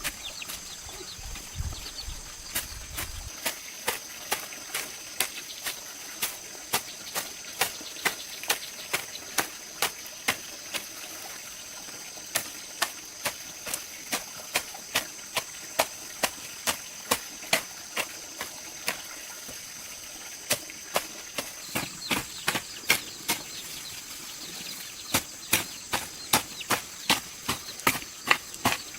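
Sharp strikes repeating about twice a second, with two short pauses, over a steady high-pitched drone.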